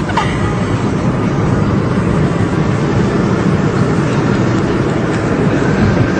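Motorcycle riding fast on the road: a steady, loud rush of engine and wind noise.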